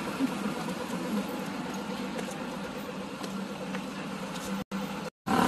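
City street traffic: a steady hum of engines and tyres from passing and idling vehicles. The sound cuts out to silence twice, briefly, near the end.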